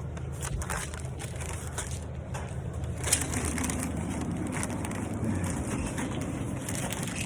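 Rustling, crunching handling noise over a steady low hum.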